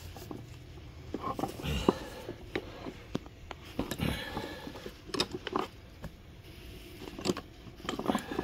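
Irregular clicks, knocks and rubbing from hands working a small mower tire on a mini tire changer, which is stuck and not coming loose.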